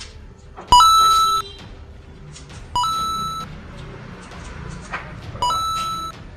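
Electronic beep sound effect, three times (about a second in, near three seconds, and near the end), each a clipped tone about half a second long. Each beep marks a point added to the on-screen pani puri tally.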